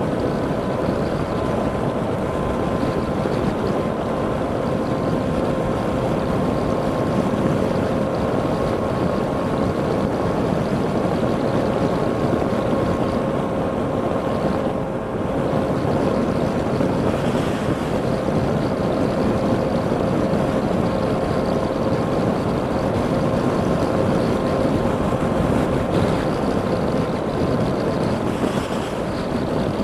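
Steady road and wind noise of a car driving at highway speed, heard inside the cabin, with a steady hum running through it.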